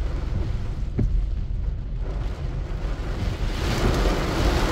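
Heavy rain pelting the roof and windshield of a car, heard from inside the cabin as a dense, steady rumble and patter. A hiss swells near the end as a windshield wiper sweeps across the streaming glass.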